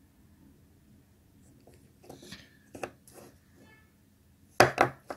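Plastic shower door wheel handled by hand: scattered clicks and knocks of the plastic housing and metal bracket, with two louder knocks near the end.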